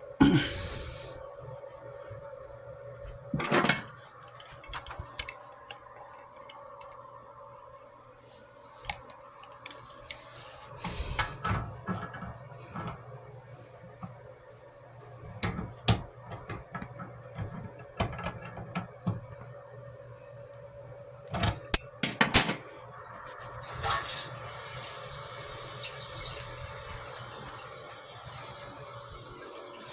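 Metal tools and pipe fittings clanking and knocking during plumbing work, with a louder cluster of clanks about two-thirds of the way through. Near the end a steady hiss sets in and holds.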